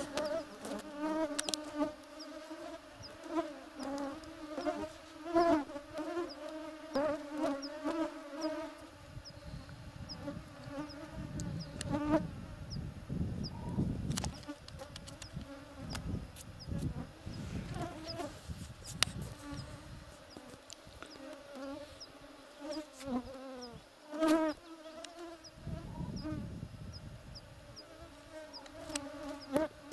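Flying insects buzzing close by, the drone swelling and wavering in pitch as they pass, with a faint high tick repeating about once a second.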